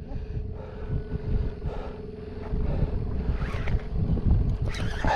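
Boat motor humming steadily under wind buffeting the microphone, with a few short clicks near the end.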